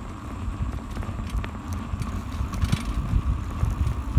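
Bicycle riding over a rough road, heard through a handlebar-mounted camera: a steady low rumble of road vibration and wind on the microphone, with scattered small knocks and rattles from the bike.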